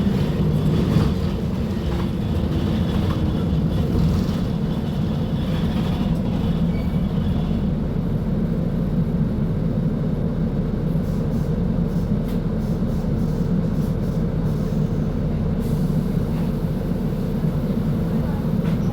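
Mercedes-Benz OF-1724L bus's Bluetec 5 diesel engine running steadily, a deep even rumble.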